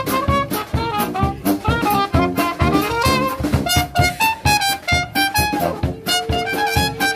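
Small brass street band playing a lively, jazzy tune: a trumpet carries the melody over a tuba bass line and a steady bass-drum beat.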